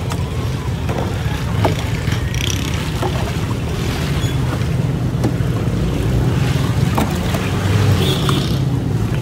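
A steady low rumble of street background noise, with scattered light clinks as a ladle stirs crushed ice in a steel pot of pink milk drink.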